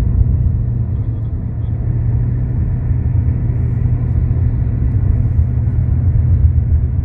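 Steady low rumble of a car in motion: road and engine noise with no change in pace.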